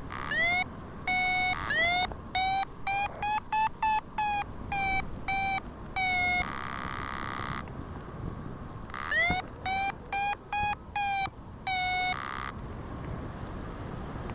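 Paragliding variometer beeping: short pitched beeps, each swooping up at its start, that come faster and slightly higher in pitch about three to five seconds in and again near the end, the sign of the glider climbing in lift.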